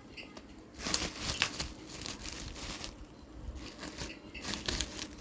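Parcel packaging crinkling and tearing in irregular handfuls as it is unwrapped, loudest about a second in and again near the end.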